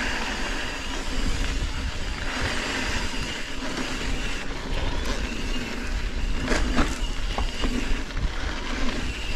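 Wind buffeting the microphone over the rolling and rattle of a mountain bike on a dirt trail. A few brief high squeaks come about six and a half to seven and a half seconds in.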